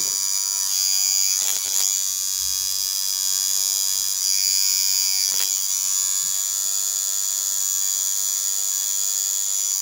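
Electric tattoo machine with a cartridge needle buzzing steadily with a high whine as it lines the skin, with a few faint ticks about one and a half, two and five seconds in.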